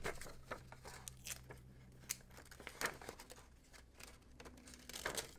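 Folded printer paper and clear adhesive tape handled by hand: faint crinkling and a few soft ticks as a strip of tape is pressed onto the paper.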